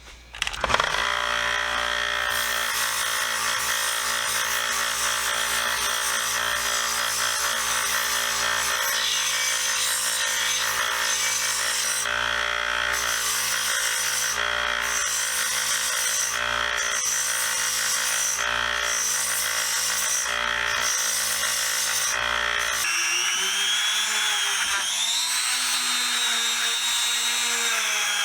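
A 1x30 belt sander runs steadily while a steel pipe wrench is ground against the belt to take off sharp forge marks, the grinding noise coming and going as the piece is pressed on and lifted. About 23 seconds in the sound changes to a thinner, higher-pitched tool whose pitch rises and falls.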